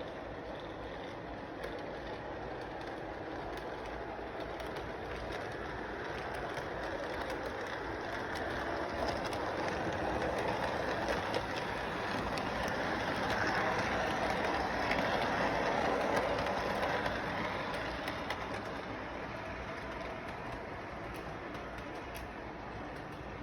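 Train running along its track with a steady rattle, growing louder as it passes close by around the middle, then fading away.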